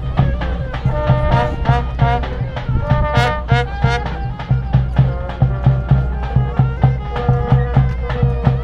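Serbian brass band music: trumpets playing a melody over a steady beat, with a wavering, ornamented line about three seconds in.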